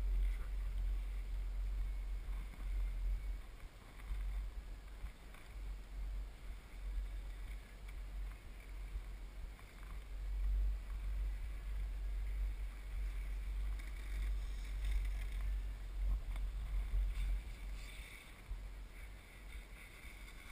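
Wind buffeting a GoPro's microphone: a low, uneven rumble that rises and falls in strength.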